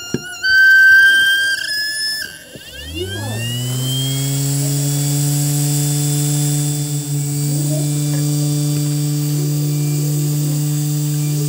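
Hard-drive brushless DC spindle motor, run without its drive controller, starting up: a loud high-pitched whine for about two seconds, then a hum that rises in pitch as the platter spins up and settles into a steady hum by about four seconds in.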